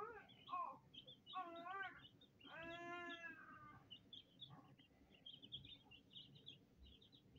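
Young chicks peeping, many short high cheeps throughout. Three longer, lower wavering cries come in the first four seconds, the longest lasting about a second.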